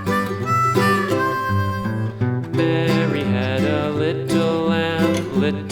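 Instrumental background music: an upbeat country-style tune with guitar.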